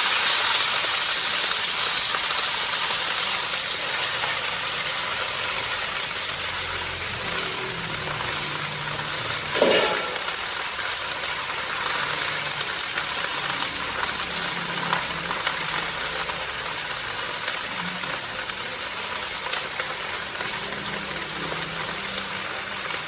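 Climbing perch frying in hot oil in a pan: a steady sizzling hiss that slowly fades.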